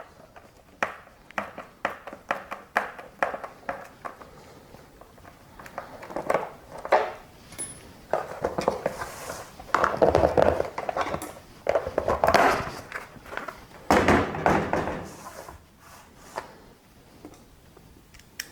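A run of clicks and light knocks from handling plastic parts and tools, then three scraping bursts about a second each, as a larger self-tapping screw is worked into a new hole in the hard plastic of a console armrest.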